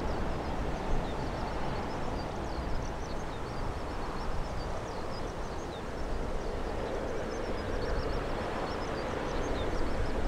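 Steady rumble and hiss of an approaching Airbus A320neo airliner on final approach, its geared-turbofan engines at low approach power, growing slightly louder toward the end. Many short high chirps sound over it throughout.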